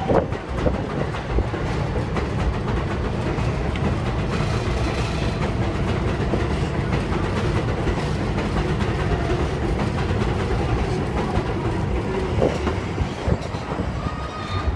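New York City Subway 7 train of R142A cars running past the platform on the elevated steel structure: a steady, loud rumble of wheels and running gear.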